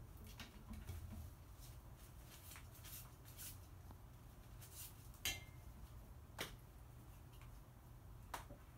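Faint scattered clicks and taps from a crow moving about its indoor aviary out of sight. The sharpest comes a little past halfway and two more follow toward the end, over a steady low hum.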